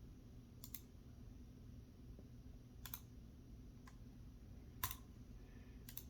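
A handful of short, sharp clicks, a second or so apart and some of them doubled, the loudest about five seconds in, over a low steady hum.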